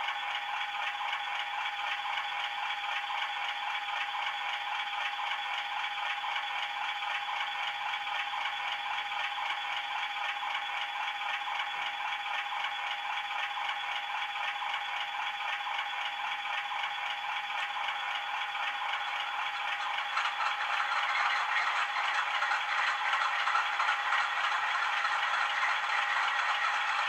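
Diesel engines idling, played by the DCC sound decoders of several OO gauge model locomotives (Class 37, Class 50 and Class 66) through their small speakers, with no bass: a steady, rattly tick-over with a constant tone running through it. It grows louder about twenty seconds in.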